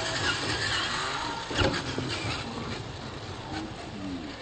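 Electric RC monster truck driving over dirt, its motor whining and shifting in pitch with the throttle. A sharp knock about a second and a half in.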